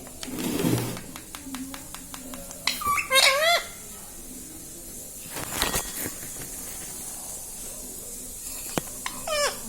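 Ringneck parrot giving short squawks that fall in pitch, one about three seconds in and another near the end, with a run of soft clicks before the first and a couple of brief rustling bursts.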